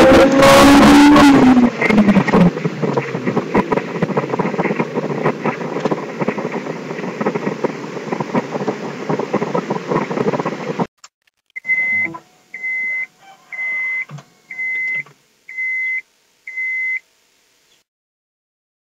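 Turbocharged Honda S2000's 2.0-litre four-cylinder engine pulling hard near redline at wide-open throttle, its revs falling as the throttle is closed, followed by steady engine and road noise that cuts off abruptly about eleven seconds in. Then six short, high beeps about a second apart.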